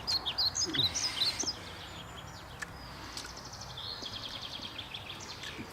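Songbirds chirping: a quick run of high, twittering notes in the first second and a half, then a rapid high trill a few seconds later, over steady outdoor background noise.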